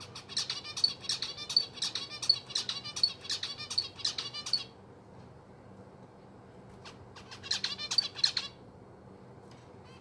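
Zebra finch singing: a quick run of repeated high chirping notes for about four and a half seconds, then a shorter phrase about seven and a half seconds in.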